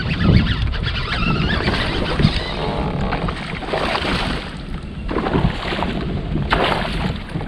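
Wind buffeting the microphone on a fishing kayak, a steady low rumble with a rushing hiss over it, and water sounds around the hull.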